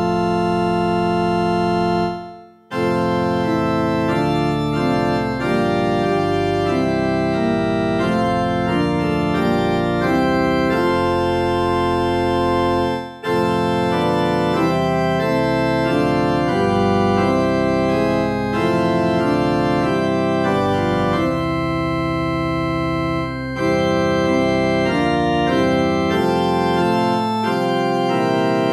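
Background music of slow, held chords that change every second or two, with short breaks about two seconds in and about thirteen seconds in.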